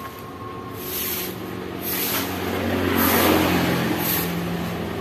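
A motor vehicle going by on a wet road: a steady engine hum that grows to its loudest about three seconds in, with tyre hiss on the wet surface, then eases off.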